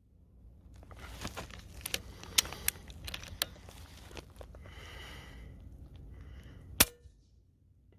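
Air rifle being handled, with scattered clicks and rustling, then a single sharp shot near the end.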